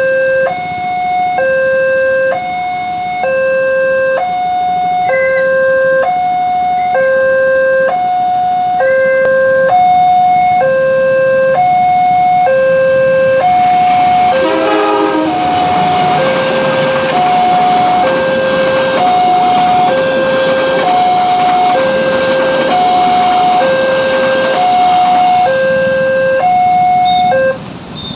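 Railway level-crossing alarm sounding its two-tone warning, a low and a higher tone alternating about every half second. From about halfway a passing train's rumble rises underneath, and the alarm stops shortly before the end.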